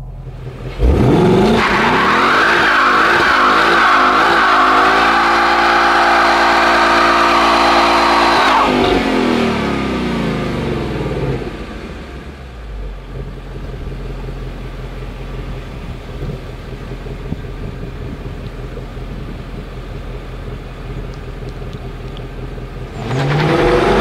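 2016 Ford Mustang GT's 5.0-litre V8 burnout on the electronic line lock: about a second in the engine is revved up sharply and held high for some seven seconds as the rear tyres spin with the front wheels locked. The revs then fall away and the engine settles to a lower steady sound, and just before the end it revs up again, accelerating.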